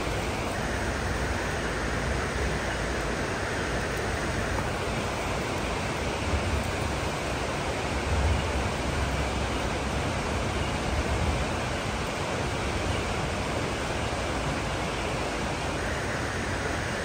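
Steady roar of road traffic on the highway bridge overhead, with a few deeper swells partway through as heavier vehicles pass.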